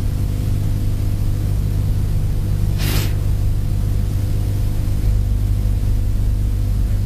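A single isolated German [f] pronounced as a demonstration: one short, breathy hiss of air forced between the lower lip and upper teeth, with no voice, about three seconds in. A steady low hum runs underneath throughout.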